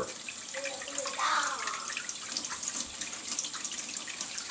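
Water running steadily from a tap and splashing into a sink, the supply flowing again after the pump repair.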